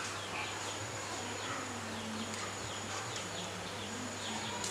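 Faint background ambience: a steady low hum with many short, scattered chirps.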